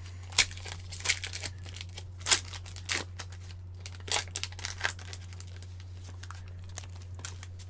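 Foil wrapper of an Upper Deck hockey card pack crinkling and tearing as gloved hands open it, in a run of short, sharp rustles that thin out after about five seconds.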